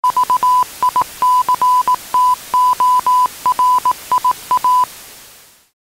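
A sound effect of short and long beeps on one steady tone, keyed in a Morse-code-like pattern of dots and dashes, over a steady hiss of TV static. The beeps stop shortly before the five-second mark and the static hiss fades out soon after.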